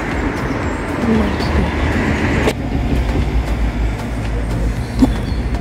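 Steady low rumble of outdoor traffic noise. The higher hiss drops away sharply about two and a half seconds in.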